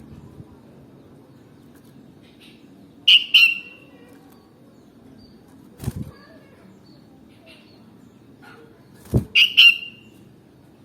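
Sooty-headed bulbul giving short, sharp call notes: a quick pair about three seconds in and a quick run of three near the end. A dull thump comes near the middle and another just before the last calls.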